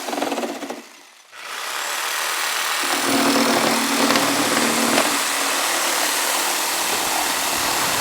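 A gasoline engine of power equipment runs steadily, dropping away briefly about a second in before coming back.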